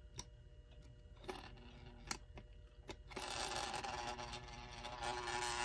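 A few light clicks, then, about three seconds in, the electric motor and gear train of a 1930s Continental Electric clock start running with a dense, loud buzz and gear rattle after a hand spin of the start knob. The mechanism has not yet been cleaned or lubricated.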